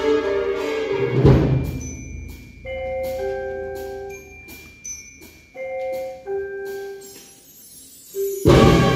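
High school symphonic band: a loud full-band chord with a low accent about a second in dies away into a quiet passage of a few sparse, ringing mallet-percussion notes with light high strokes, and the full band comes back in loudly near the end.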